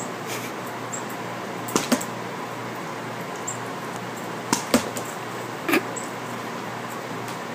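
A cat's paw tapping against a laptop screen: a few sharp taps, in two quick pairs and then one more, over a steady hiss.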